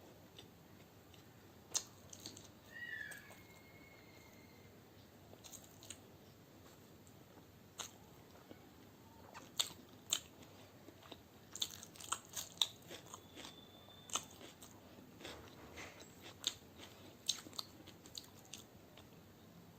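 Close-miked eating: chewing of egg biryani with crisp crunches and sharp mouth clicks, coming more often in the second half. A brief faint high chirp sounds about three seconds in.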